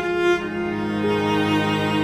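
Slow background music played on bowed strings, with held notes that change every second or so.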